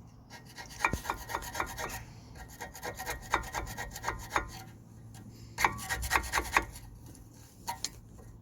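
Caliper bracket being scraped clean of brake dust and debris: quick repeated scraping strokes, about four a second, in a long run with a brief pause before a second, shorter run.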